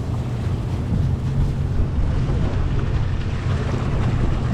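Steady low hum of a fishing boat's engine, mixed with wind on the microphone and the wash of sea water.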